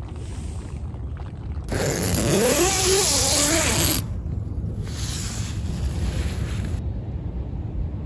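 A tent door zipper pulled open in one long two-second run, its pitch wavering up and down with the pull, followed by a softer rustle of the nylon door. A steady low rumble lies underneath.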